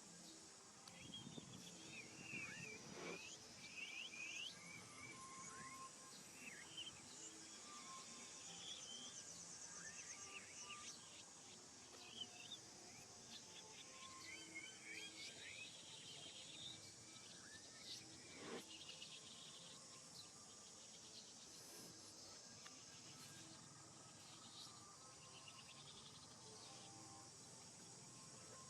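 Faint outdoor animal ambience: a steady high insect drone, with many short, high, rising animal chirps and squeaks scattered through, busiest near the start and again about halfway in.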